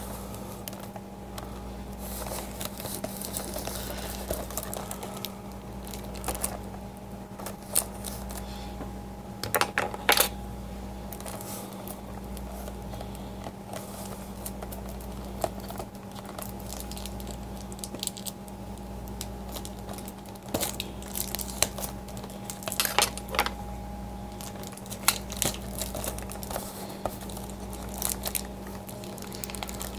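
Clear plastic shrink wrap on a figurine display box crinkling and crackling in scattered bursts as the box is handled and turned, with a few sharper clicks. A steady low hum runs underneath.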